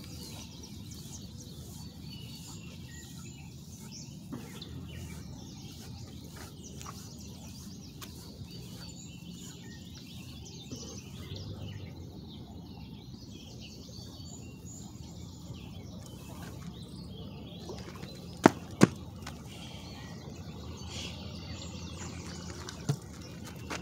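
Steady low background noise with faint bird chirps, and two sharp clicks about a third of a second apart near the end.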